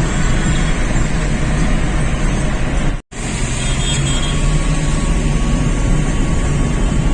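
Steady running noise of a moving vehicle, a low rumble with a broad hiss. It drops out for a split second about three seconds in, where two shots are joined.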